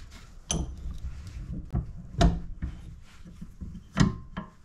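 Steel M1917 rifle buttplate knocking and clinking against a bench vise as it is handled: three loud sharp knocks about a second and a half to two seconds apart, with lighter clicks and rattles between.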